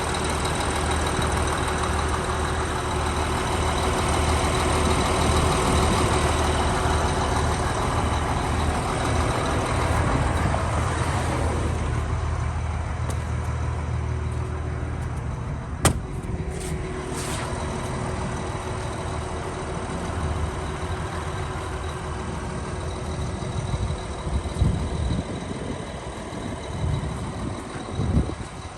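Liebherr R946 excavator's diesel engine running steadily. A sharp click comes about halfway through, after which the low engine hum fades, and there are a few knocks near the end.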